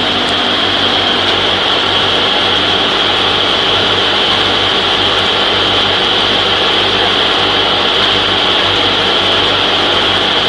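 Electric ultra-fine peanut butter grinding mill running under load as it grinds peanuts into paste. It makes a loud, steady high whir over a low hum.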